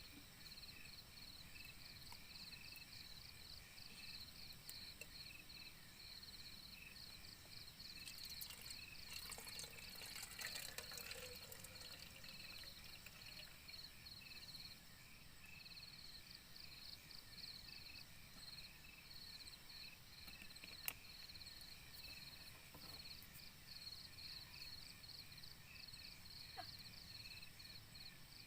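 Faint chorus of night insects, chirping in a steady, rapid pulse. About eight to twelve seconds in, a brief louder, splashing noise rises over it.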